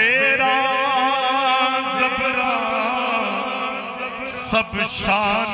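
Man's voice singing a Punjabi Sufi kalam through a microphone: a long, drawn-out note with wavering vibrato and ornamented turns, over a steady low drone. A brief breath or hiss about four and a half seconds in, before the next phrase begins.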